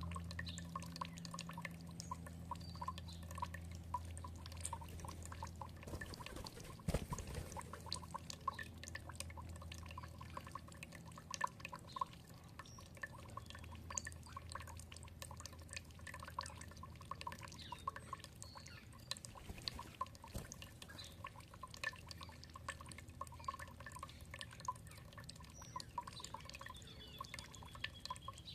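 Water trickling in a steady patter of small drips, with a low hum that fades over the first several seconds. A few faint bird chirps, and a falling whistled bird note near the end.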